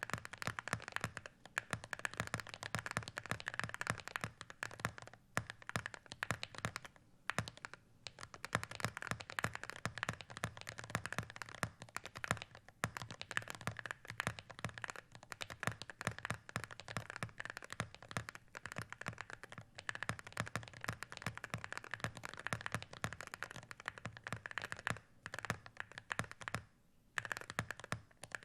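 Fast, continuous typing on a Wooting 60HE keyboard with Geonworks Raw HE magnetic switches and Cerakeys ceramic keycaps, a dense run of keystroke clacks with a few short pauses.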